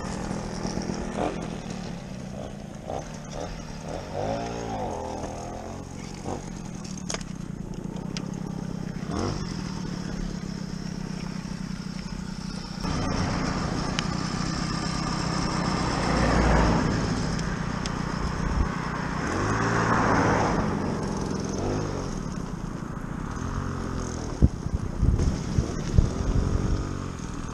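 Small two-stroke moped engines running at idle, revved several times so the pitch rises and falls.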